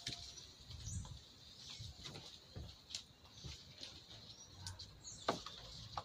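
Faint scattered clicks and knocks of a plastic engine intake duct being handled and lifted off the engine, with one sharper click about five seconds in.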